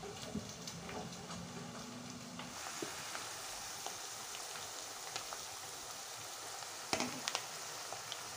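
Thin potato slices frying in a pan of hot oil for homemade chips: a steady sizzle that comes in about two and a half seconds in. A couple of sharp clicks sound about seven seconds in.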